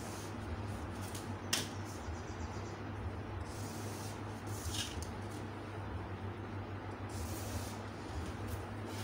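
Marker pen drawn along a ruler on paper pattern pieces in a few short scratchy strokes, with light rustling of the paper and ruler and a small click about a second and a half in, over a steady low hum.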